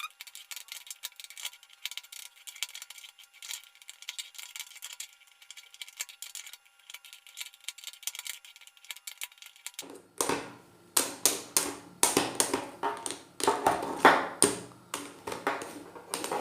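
Rapid, irregular clicks and clacks of a non-magnetic Cubelelo Drift speed cube having its layers turned and knocked with two spoons. The clacks are thin at first and become much louder and fuller about ten seconds in.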